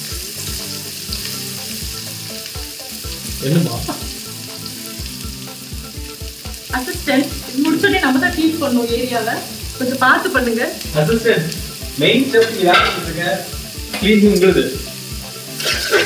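Chopped onions sizzling in hot oil in a metal kadai while a spatula stirs them, scraping against the pan. The stirring gets busier from about seven seconds in.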